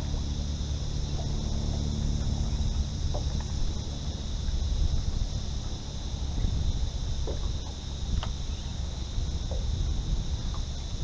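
Steady, high-pitched insect chorus, with a low rumble of wind on the microphone underneath and a few faint clicks.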